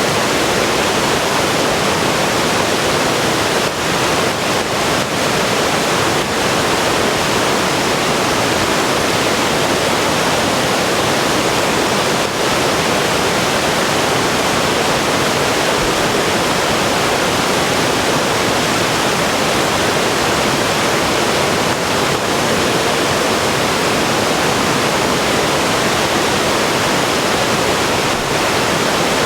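River water rushing and tumbling over rapids in a steady, loud, even roar.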